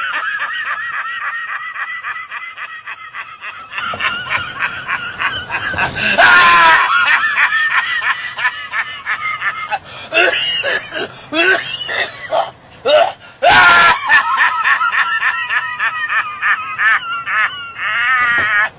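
A man laughing hard in long runs of rapid, high-pitched pulses, with louder outbursts about six seconds in and again near fourteen seconds.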